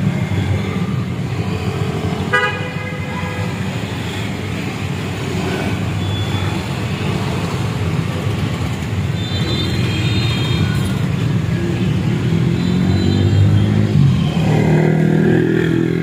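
Road traffic of cars and motorcycles passing, their engines running steadily, with a short vehicle horn toot about two seconds in. Motorcycle engines grow louder near the end.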